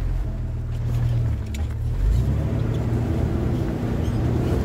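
Open-sided pink tour Jeep driving along a dirt 4x4 trail: a steady low engine and drivetrain rumble, with a few faint clicks and rattles.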